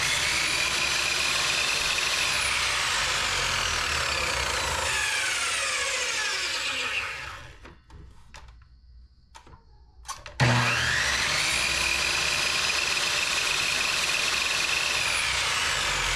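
Craftsman 10-inch miter saw running as it scores shallow cuts into the back of a thin PVC strip, so the strip can later be bent. The motor whine runs steady, winds down about seven seconds in and stops briefly. The saw starts again about ten seconds in with a rising whine, runs steady and winds down near the end.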